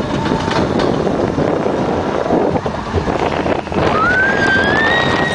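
Hurricane roller coaster train running, a steady rumble with wind rushing over the microphone. About four seconds in, a high tone rises and holds for over a second.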